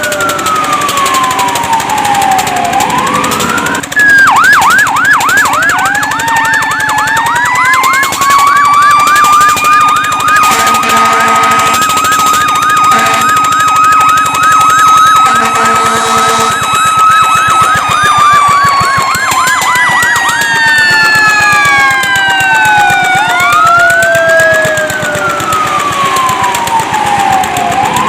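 Fire truck siren changing between a slow wail, falling and rising over a few seconds, and a fast yelp of about four sweeps a second. A second siren tone rises slowly, holds steady and falls away beneath it. Two horn blasts sound in the middle, a few seconds apart.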